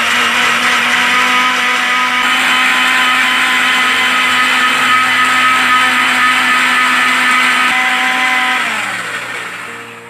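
Electric kitchen mixer grinder with a steel jar blending carrot, ginger, lime juice, water and ice cubes, its motor running steadily at full speed. About eight and a half seconds in it is switched off and winds down, its pitch falling as it fades.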